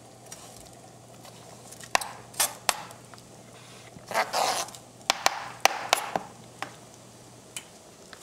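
Kitchen clatter: scattered knocks and clinks of utensils and dishes, with a short scrape about four seconds in, over a low steady hum that stops near the end.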